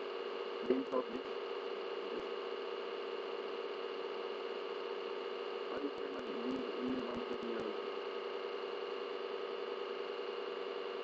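Steady electrical hum and hiss of the recording setup. Faint clicks and brief low murmurs come about a second in and again around six to seven seconds in.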